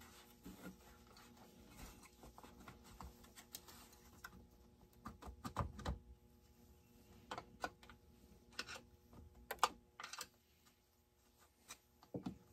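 Faint, irregular clicks and light taps of small metal and plastic parts being handled on a partly dismantled Redmax GZ360 chainsaw, with a few louder knocks in the middle.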